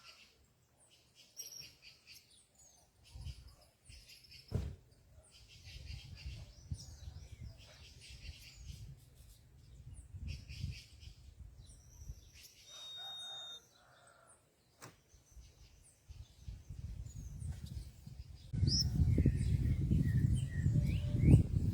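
Birds calling around a fruit feeder with scattered short, high chirps and whistles. About three-quarters of the way through, a loud low rumble sets in and takes over.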